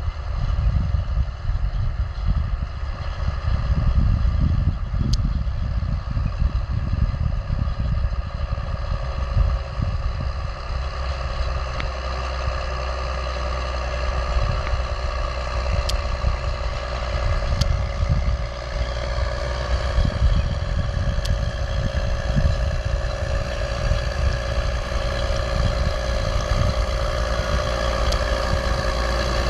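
New Holland T7030 tractor's six-cylinder diesel running steadily under load while it pulls a set of field rolls, growing louder toward the end as it comes closer. Wind buffets the microphone throughout.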